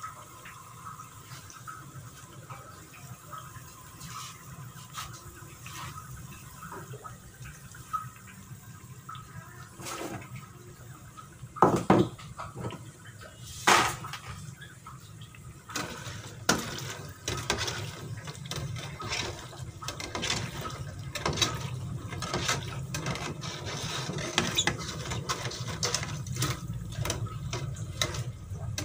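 Kue bawang dough strips deep-frying in a pot of hot oil, sizzling with many small crackles that grow busier through the second half. A couple of louder sharp knocks come near the middle.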